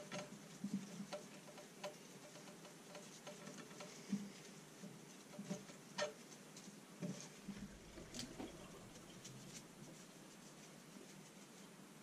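Gloved hands rubbing spice mix into a raw whole chicken in a dish: faint, irregular wet pats and squishes with scattered light clicks, a few a little louder midway.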